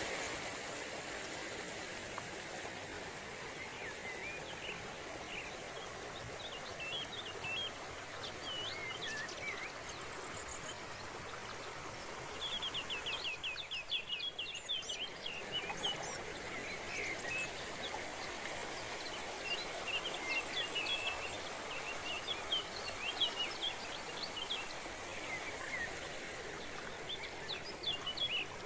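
Steady rush of a forest waterfall, with small birds chirping and calling over it; a quick run of rapidly repeated chirps comes about halfway through, and the chirping grows busier again later.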